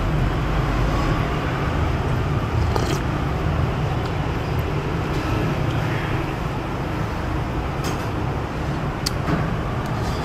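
Steady rumble of road traffic, with a few light clicks of a spoon and chopsticks against a soup bowl.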